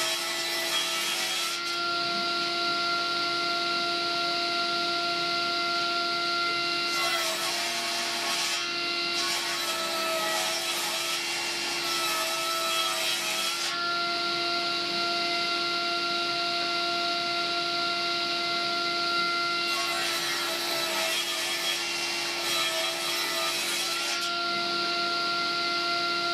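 Table saw running with a steady whine as a glued-up wooden panel is ripped into strips. The blade cuts through the wood three times: a cut ending just after the start, a longer cut of about six seconds in the middle, and one of about four seconds near the end, with the blade spinning free in between.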